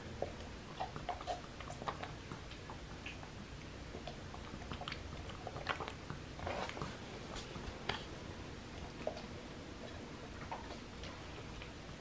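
Black-capped capuchin monkey sucking juice from the spout of a plastic sippy cup: soft wet sucks, lip smacks and tongue clicks at irregular moments.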